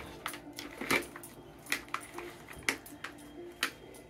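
Plastic treat-puzzle feeder being nosed and pawed by a dog: irregular hard plastic clicks and knocks, a few spread across the moment, as its parts shift.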